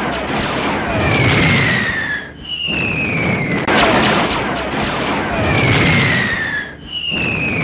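Cartoon sound effects of missiles firing and exploding: sustained rushing blasts overlaid with falling whistles. The same sequence plays twice, the second time starting with a sudden jump in loudness about three and a half seconds in.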